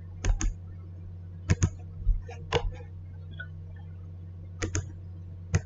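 Computer mouse clicking: short sharp clicks, several in quick pairs, spaced irregularly about a second apart, as points and toolbar buttons are picked in CAD software. A steady low electrical hum runs underneath.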